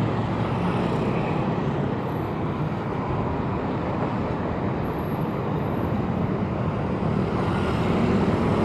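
Steady roar of city road traffic heard from a moving bicycle, with engines and tyres of passing vehicles blending into one even noise.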